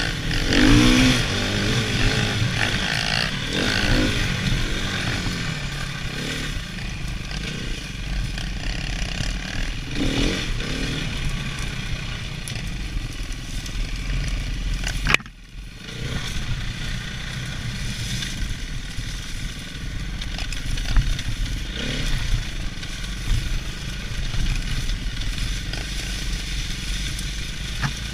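Off-road dirt bike engines running along a trail, revving up and down as the riders work the throttle, with a short break in the sound about fifteen seconds in.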